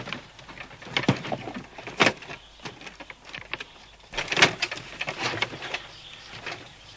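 Wooden crates and boxes being handled and pulled open: a series of irregular knocks and scrapes, the loudest about a second in, at two seconds, and in a cluster around four and a half seconds.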